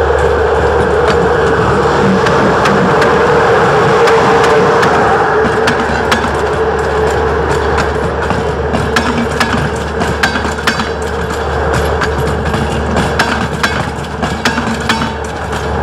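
A train running past with a steady hum, its wheels clicking and clattering over rail joints and points, the clicks coming thicker in the second half.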